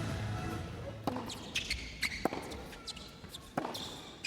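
Tennis ball impacts: a series of sharp, irregularly spaced pops of the ball bouncing on the court and being struck by rackets.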